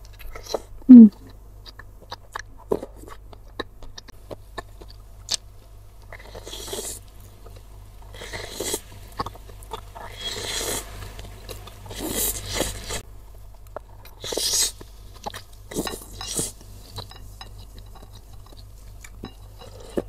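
Slurping of thin noodles and broth from a spoon, in about half a dozen noisy slurps from about six seconds on, with chewing and small mouth and spoon clicks. About a second in there is a short loud sound falling in pitch.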